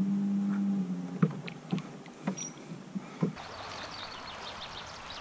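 Small rowing boat on a river: a steady low hum stops about a second in, then come five sharp separate knocks of oars and gear against the hull and oarlocks. Near the end the sound turns to an even outdoor hiss with faint high chirps.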